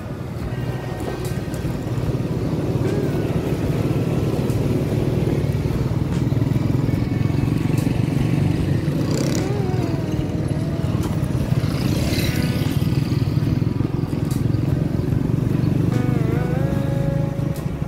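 Steady engine hum and road noise from a vehicle under way. A few brief wavering tones sound over it.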